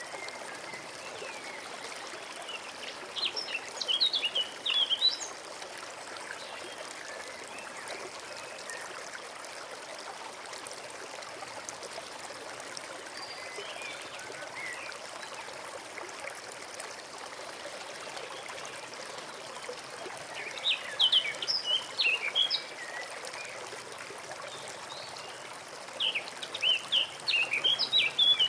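A small forest stream trickling steadily over stones, with a songbird singing three short bursts of quick chirping notes, about three seconds in, about twenty seconds in and near the end.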